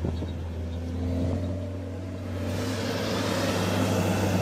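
Heavy diesel engine running with a steady low drone. From about two and a half seconds in it grows louder, with a rising hiss, as the machine works harder.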